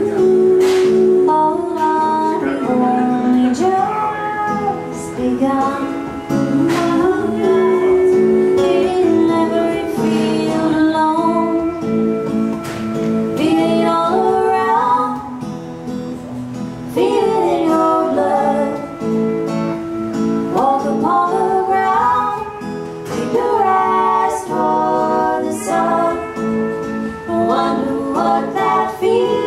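Live band music: women's voices singing over strummed acoustic guitar and a sustained accompanying instrument.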